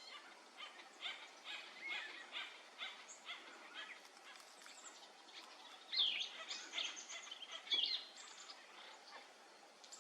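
Birds calling: a run of short, quick call notes, with two louder sweeping calls about six and eight seconds in.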